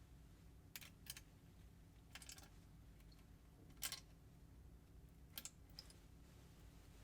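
Light clicks and short scrapes of small plastic kit pieces being handled, about six in all, the loudest about four seconds in, against near silence.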